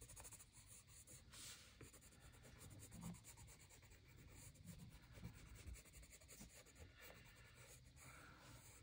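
Faint scratching of a Brutfuner colored pencil on Canson XL sketch paper as a swatch is shaded and then a circle is drawn.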